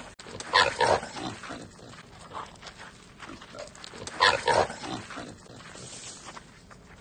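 Hog squealing while it is being knifed: two loud bursts of squeals, about half a second in and again a little after four seconds, with quieter squeals between.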